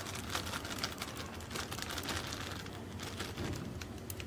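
Thin plastic bag crinkling in the hands as gram flour is shaken out of it into a plastic bowl, a scatter of light irregular crackles.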